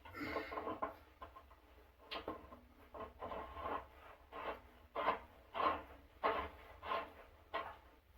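Repeated scraping, rubbing strokes: irregular at first, then a steady run of about five stronger strokes near the end, a little under two a second.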